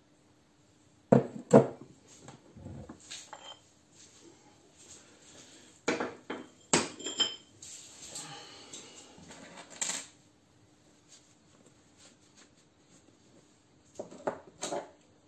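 Metal tools and parts clinking and knocking as they are handled and set down: several separate groups of sharp clanks, some with a short metallic ring, with pauses in between.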